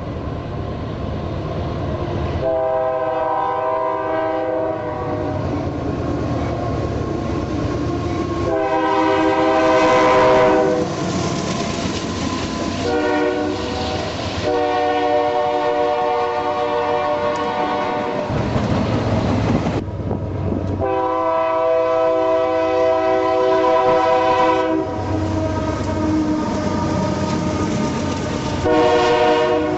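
Diesel freight locomotive air horn sounding the grade-crossing signal, long, long, short, long, then another long blast and the start of one more near the end. The train's rolling rumble and wheels clacking over rail joints fill the gaps between blasts.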